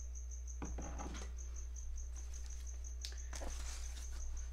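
A cricket chirping steadily in high, even pulses, about five a second, over a low hum. Cardboard boxes and a clear acrylic enclosure are handled, with short rustles and knocks about half a second in and again about three seconds in.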